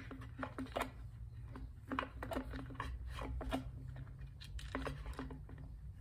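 Irregular small clicks, taps and scrapes of pliers and a fuel line being worked through the plastic fuel tank of a Husqvarna 128LD trimmer, over a low steady hum.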